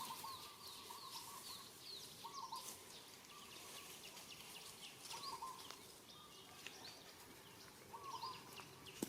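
Faint outdoor ambience of birds calling: many short high chirps throughout, and a short warbled call repeating every second or two.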